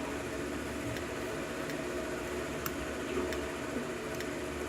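Faint, scattered clicks of a lock pick working the pin stack of a Schlage KIK pin-tumbler cylinder under light tension, setting pins one at a time, over a steady background hum and hiss.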